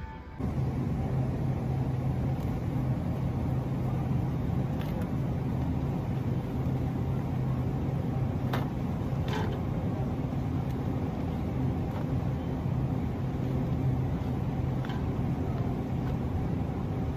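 A car driving, with steady engine and road noise and a low, even hum.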